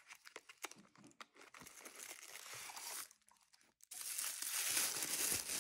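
Light taps and scrapes of a small cardboard box being handled and its contents slid out. About four seconds in, tissue paper crinkles and rustles steadily as a wrapped item is unwrapped.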